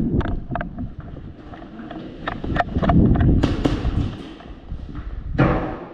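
Irregular sharp clicks and knocks over a low rumble of movement and wind on a body-worn camera microphone, with a louder noisy burst about five and a half seconds in.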